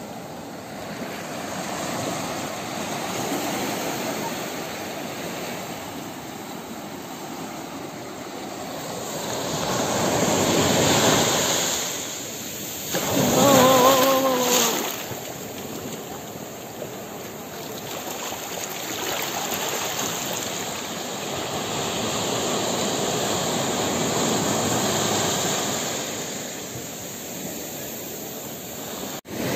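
Shallow surf washing in and out over sand at the water's edge, a steady rush that swells and fades with each wave. About halfway through, a wave surge peaks together with a brief wavering pitched call.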